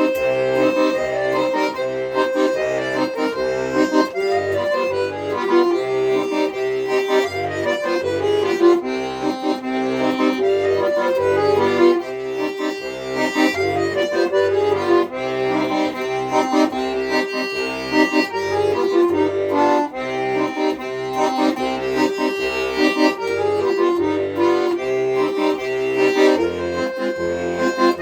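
Accordion playing a folk-style tune: a melody over a steady, regular bass accompaniment, with no singing.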